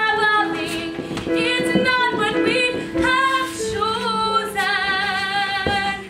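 Stage-musical number: a female voice singing, with vibrato on held notes, over sustained instrumental accompaniment.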